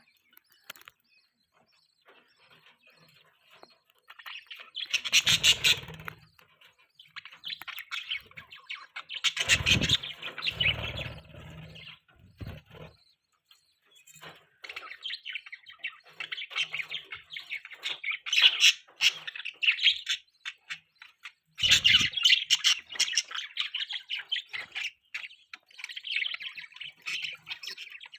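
Budgies chirping and chattering in quick, busy bursts that start a few seconds in and come and go, with a few low thumps among them.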